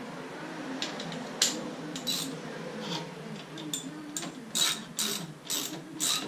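Hand ratchet wrench worked in short strokes, a brief burst of clicking every half second or so, getting louder in the second half.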